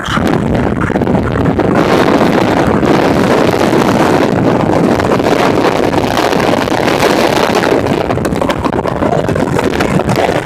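Loud wind buffeting the phone's microphone from a car moving at highway speed, a dense, rough rumble with no letup.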